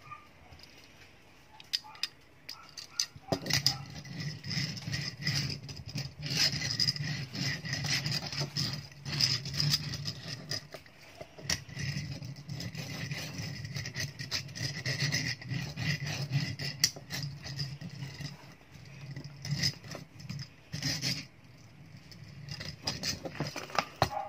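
Rubbing and scraping, dotted with small clicks, as hands handle a small die-cast toy car, its cardboard box and its plastic wrapping. It starts about three seconds in and stops near the end, leaving only a few clicks.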